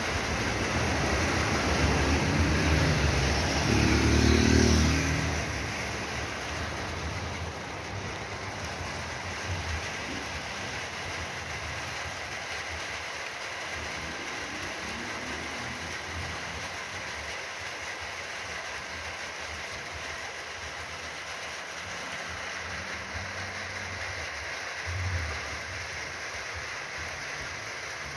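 Steady hiss of rain falling. A car and a motorcycle drive past on the wet road, loudest about four seconds in, with the engine pitch rising. Near the end there is a brief low thump.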